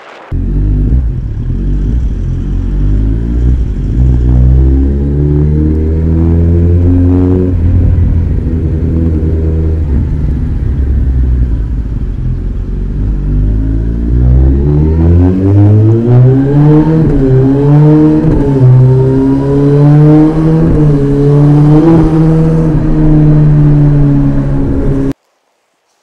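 Kawasaki ZX-14R's inline-four engine running through an Akrapovic exhaust, loud and steady at first, then rising in pitch as it accelerates about halfway through. The revs climb and dip repeatedly in the later part, and the sound cuts off abruptly near the end.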